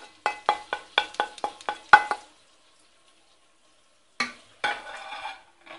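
Wooden spoon scraping breadcrumbs off a plate into a pot in quick strokes, about four or five a second, the last one the loudest. After a short pause, the spoon stirs the dry crumbs into soaked textured soy with a gritty scraping.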